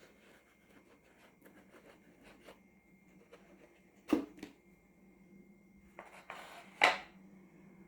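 Small handling noises of a paper-craft box: light rustles and taps, with two louder sharp knocks, one about four seconds in and one near the end, over a faint steady hum.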